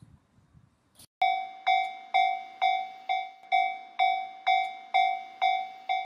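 Japanese level-crossing warning bell starting suddenly about a second in, then ringing steadily at about two dings a second, each ding fading before the next.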